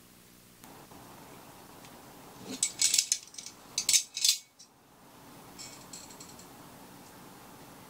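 Metal clattering and scraping at the firebox door of a small steel camping wood stove as kindling is pushed in, in two sharp bursts about a second apart, followed by a run of faint quick clicks from a long lighter being worked at the opening.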